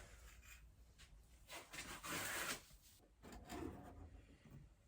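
Faint rubbing and handling noises, with a longer scrape about two seconds in and a shorter one about three and a half seconds in.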